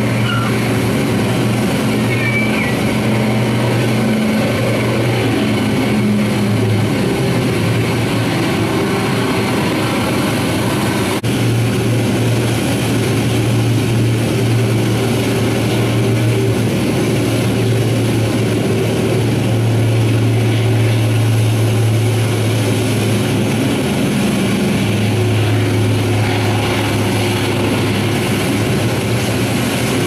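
Radial aircraft engines and propellers running steadily, a continuous deep drone whose tone shifts a little now and then.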